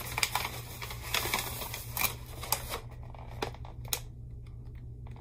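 Yellow wrapping paper rustling and crinkling as hands fold it back from the contents of a stationery box, dying down after about three seconds.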